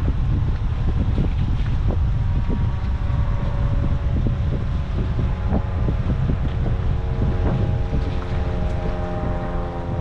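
Wind buffeting the microphone in a heavy low rumble. From about four seconds in, a steady motor drone with several held tones comes in underneath and stays.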